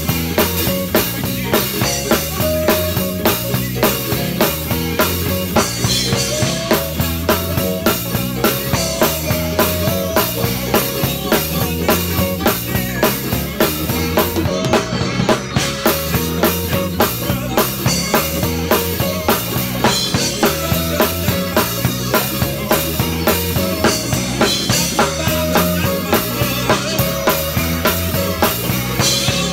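Drum kit played close up in a live church praise band: a steady, even beat on snare, kick drum and cymbals over bass guitar. The cymbals drop out briefly about halfway through.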